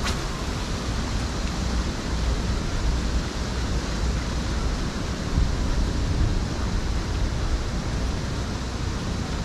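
Wind blowing across the microphone: a steady rushing hiss over an uneven low rumble.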